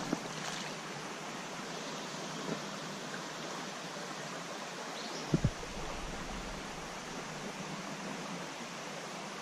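Steady rush of a small stream's flowing water, with a brief double knock about five and a half seconds in.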